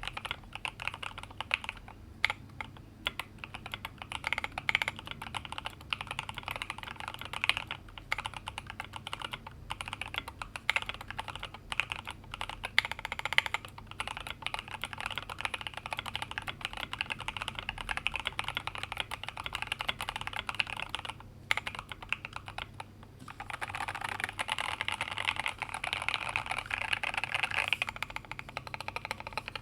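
Continuous typing on a Tokyo60 Rev 3 mechanical keyboard: lubed, filmed OP Black switches under PBT MT3-profile keycaps, in an aluminium case with neoprene switch foam. The keystrokes break off briefly a little over two-thirds through, then resume quicker and more densely.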